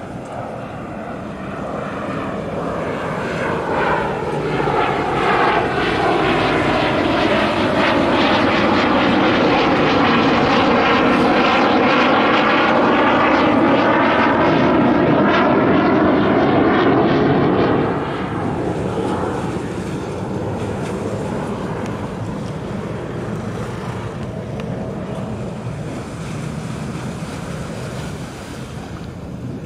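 Jet aircraft flying low overhead. The noise builds over several seconds and holds loud for about ten seconds, with its pitch sweeping down and back up as it passes. It drops off sharply about eighteen seconds in, leaving a fainter rumble.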